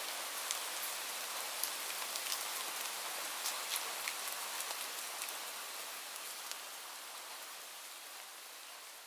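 Light rain falling, a steady hiss with scattered close drop patters, fading out gradually over the second half.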